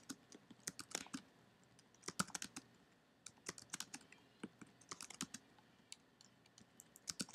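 Computer keyboard typing: quiet keystrokes in short, irregular bursts with brief pauses between them.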